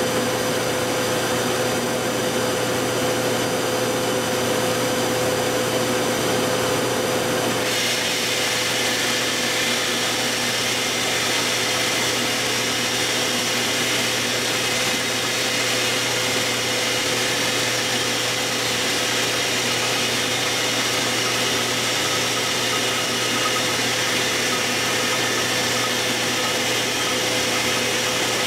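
A 40 hp Monarch Series 90 lathe running steadily, turning a long pipe test bar while taking a pass along it, with a constant hum and tone. About eight seconds in, the higher whine shifts abruptly to a new set of pitches.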